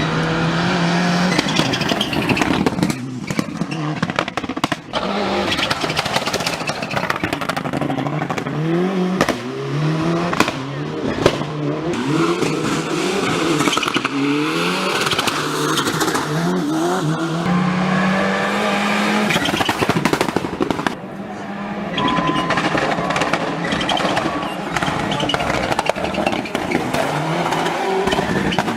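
Engine sound unit on a Tamiya TT-02 RC car imitating a Mitsubishi Lancer Evolution V. It revs up through the gears over and over, the pitch climbing and dropping back at each shift.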